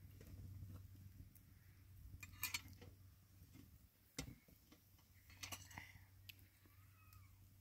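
Near silence, broken by a few faint, short clicks and taps: a small cluster about two and a half seconds in, a single one near four seconds, and a few more around five and a half seconds.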